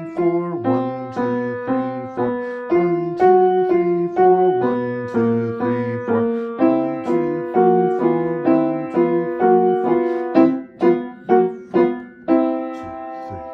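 Krakauer upright piano played with both hands in a simple beginner piece, each hand using the same fingers on mirrored notes. Notes and chords are struck at about two a second, quicker just before the end, which is a held chord.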